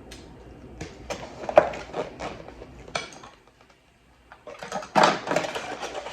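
Dishes and utensils being handled at a table: a run of separate clinks and knocks, the sharpest about a second and a half in, then a short pause and denser clattering near the end.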